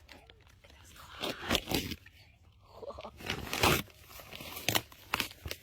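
A Halloween present being torn open, with crunching and tearing in several rough bursts.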